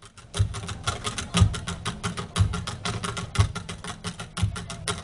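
Live Afro-Paraguayan drumming: a deep drum stroke about once a second under a fast, dense patter of drum strokes.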